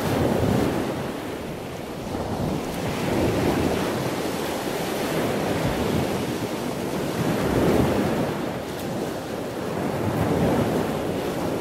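Ocean waves washing in: an even rushing noise that swells and falls back every three to four seconds.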